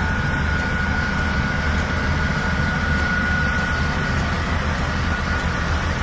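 Diesel engine of an XCMG XS203J single-drum road roller running steadily as the machine drives, a low rumble with a steady high whine over it.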